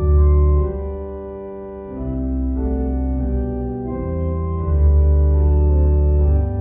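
Organ music: full sustained chords that change every second or two over deep bass notes.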